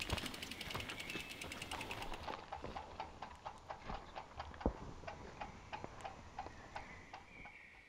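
A mountain bike's rear freehub clicking, its pawls ratcheting rapidly for about two seconds, then slower, evenly spaced ticks as the wheel spins down.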